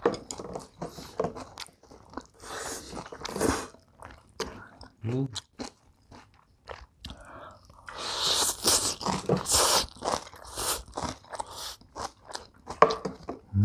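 Close-up chewing and crunching of a mouthful of bibimbap with fresh young radish kimchi, with many short crisp crunches and a longer noisy stretch about eight seconds in.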